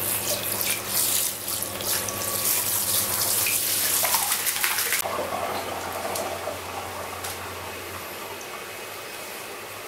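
Handheld shower head spraying water onto a small dog's wet fur and into a plastic tub. The spray is cut off suddenly about halfway through, leaving only quieter handling sounds and a low steady hum.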